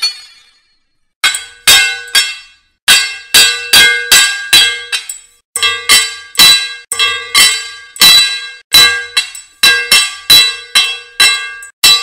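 Sword blades clashing again and again in a fast fight, starting a little over a second in, about two to three strikes a second. Each strike is a sharp clang with a ringing metallic tail.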